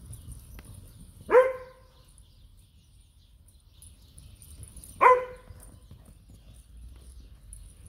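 A dog barking twice, about four seconds apart, each bark short and sharp.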